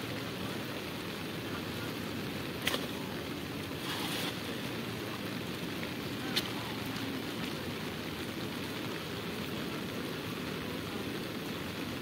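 Steady hiss of rain and wind, with a few short sharp sounds; the longest, about four seconds in, is a cast net slapping down onto the water.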